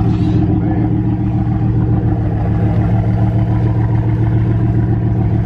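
Bugatti Vision GT's engine idling steadily, an even low drone from its exhausts with no revving.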